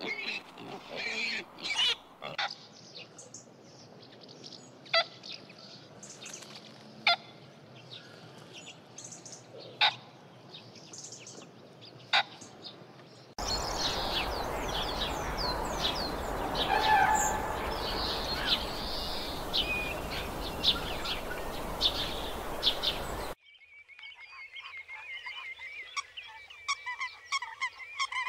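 Domestic pigs grunting briefly, then scattered sharp clicks and knocks. About 13 seconds in the sound switches to a steady rushing noise with high, quick bird chirps. About 23 seconds in it switches again to a grey-headed swamphen's repeated honking calls.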